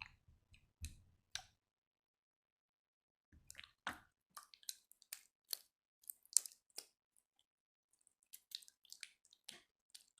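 Jiggly slime being squished and pressed by hand, giving sharp sticky clicks and little wet pops in scattered bunches, with a pause of about two seconds after the first few.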